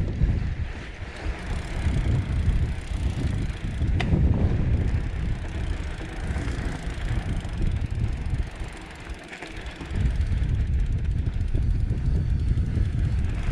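Trek Roscoe 8 hardtail mountain bike riding down a dry dirt trail, its tyre and bike noise mixed with heavy wind rumble on the microphone. There is a sharp click about four seconds in and a brief lull just before ten seconds.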